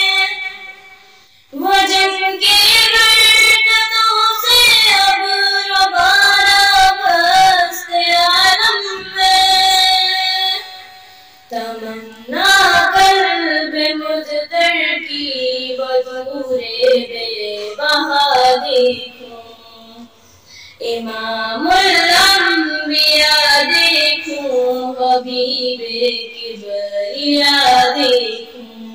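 A young girl singing a naat, an Urdu devotional poem, solo, in three long melodic phrases with short breath pauses between them.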